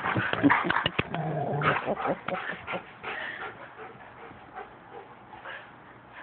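Two huskies play-fighting, making dog vocal sounds with a few sharp knocks. The noise is loudest in the first two or three seconds, then dies down to quiet, scattered sounds.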